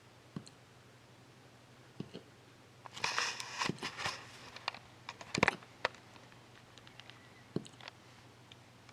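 A puppy hiccuping: short, sharp hic sounds every one and a half to two seconds, with a stretch of rustling about three seconds in.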